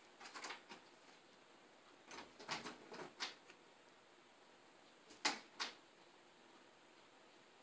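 Short clicks and knocks of a Great Dane nosing at a door and its knob, in three small clusters, the sharpest two a third of a second apart about five seconds in.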